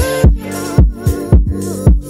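Background music: an electronic dance track with a steady kick drum about twice a second under sustained chords.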